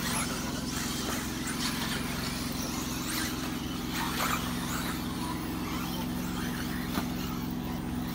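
Radio-controlled model cars racing on a track: a steady wash of car noise with a few faint clicks, over a constant low hum.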